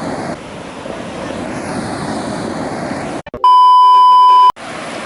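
Ocean surf and wind noise on the microphone, broken about three seconds in by a loud steady beep tone, about a second long, that starts and stops abruptly.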